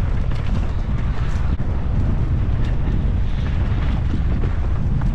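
Wind rushing over the microphone of a mountain bike ridden fast down a dirt trail, a heavy steady rumble with scattered light clicks and rattles from the bike.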